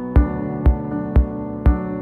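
Background music: sustained keyboard-like chords over a steady beat, about two low drum hits a second.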